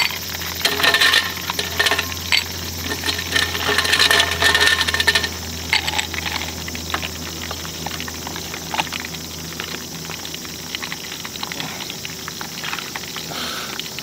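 Ice cubes dropped into a glass, clinking sharply several times through the first five seconds. Then liquid is poured over the ice, with a steady fine crackle.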